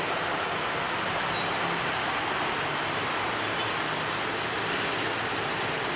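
Steady, even hiss of outdoor background noise with no distinct event in it.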